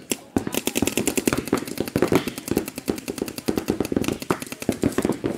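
Paintball markers firing fast strings of shots, a dense rattle of sharp pops that starts about a third of a second in and runs until just before the end.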